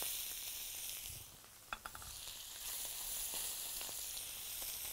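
Pieces of beef fillet sizzling in hot oil in a frying pan as they sear. A couple of light knocks sound about two seconds in, where the sizzle briefly dips.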